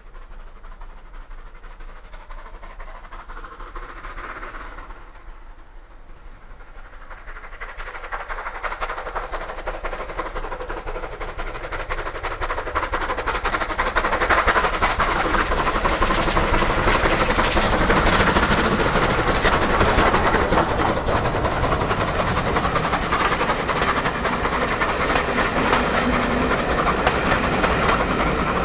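Steam locomotive 35028 Clan Line, a rebuilt Bulleid Merchant Navy Pacific, working a passenger train up a steep bank. It grows louder from about seven seconds in as it approaches. Near the end the coaches pass close by, with a steady rumble and clatter of wheels on the rails.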